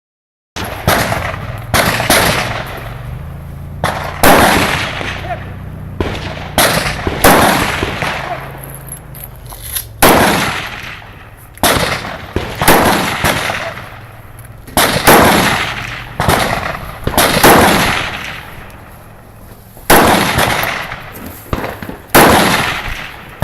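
Rifle gunshots: a string of about fifteen sharp shots at uneven intervals, mostly one to two seconds apart, each ringing out and dying away over about a second.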